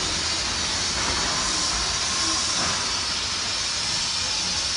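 Steady hiss of outdoor noise with no distinct crashes or impacts, and a faint high tone for a second or so in the middle.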